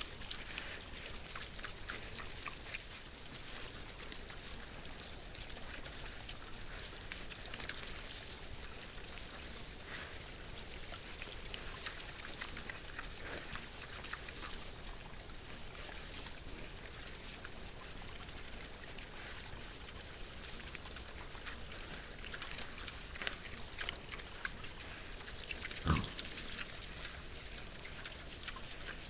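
Wild boars feeding, grunting, with many small scattered clicks over a steady hiss and one sharper knock near the end.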